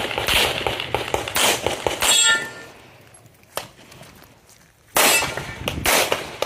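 Pistol shots from a competitor running a practical-shooting stage, fired as quick pairs and singles. Some are followed by a short metallic ring. About halfway through there is a lull of roughly two seconds, broken by one shot.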